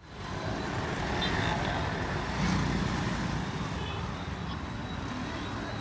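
Steady hum of city street traffic, fading in at the start.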